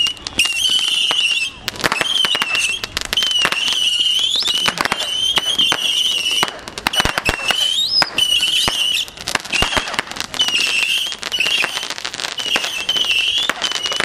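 A consumer fireworks cake ("American Mission") firing: rapid sharp cracks and pops in quick succession, with a wavering high-pitched whine running over them that briefly rises in pitch a couple of times.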